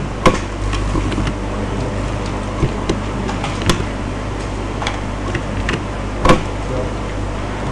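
A few sharp clicks of a computer keyboard and mouse as text is edited, three of them louder than the rest, spaced a couple of seconds apart. Under them runs a steady low hum and hiss.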